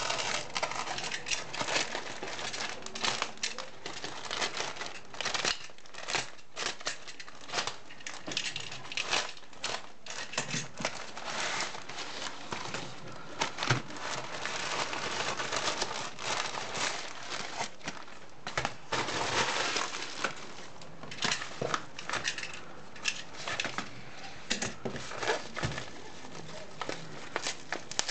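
Plastic postal bag and a padded paper mailer crinkling and rustling as they are pulled apart and torn open by hand, with irregular crackles and snaps.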